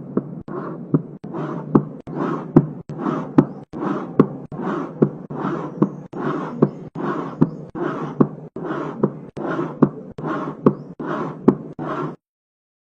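Recorded heart sounds with a murmur: a regular heartbeat at about 75 beats a minute, each beat a pair of sharp clicks with a rough noise filling most of the cycle between them. It stops about a second before the end.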